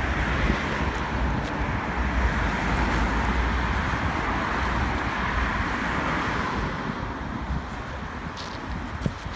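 Road traffic passing close by: a steady rush of cars and tyres, swelling in the middle as vehicles go past and easing off near the end, with a low rumble of wind on the microphone.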